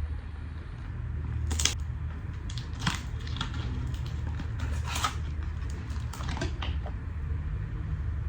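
A perfume box being opened by hand: a string of short crinkles, scrapes and clicks of packaging, over a steady low hum.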